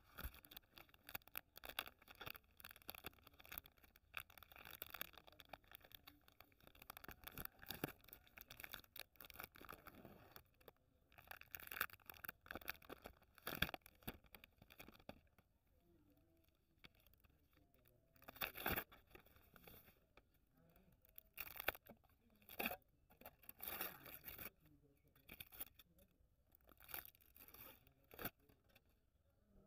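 Cadbury Dairy Milk Silk bar being unwrapped by hand: the plastic outer wrapper and then the inner foil crinkle and tear in short, irregular bursts, with a few sharper crackles.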